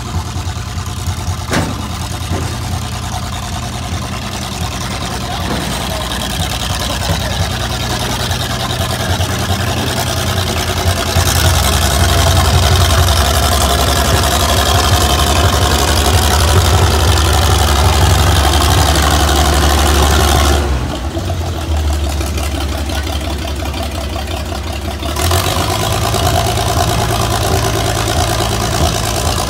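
Plymouth ML-8 industrial locomotive's engine running as it shoves two rail maintenance vehicles along the track. The engine works louder for about ten seconds in the middle, then drops back suddenly.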